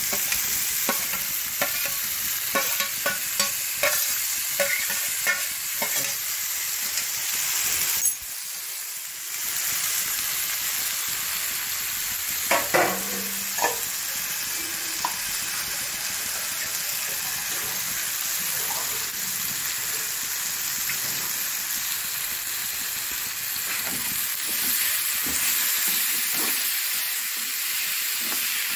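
Diced potatoes frying in oil with onion-tomato masala in a pan, sizzling steadily, while a spatula scrapes and clicks against the pan as they are stirred. The clicks come thick through the first several seconds and again in a short cluster about halfway through, and the sizzle drops briefly about eight seconds in.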